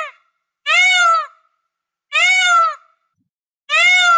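Peacock calling: loud, repeated calls about a second and a half apart, each about half a second long, rising then falling in pitch.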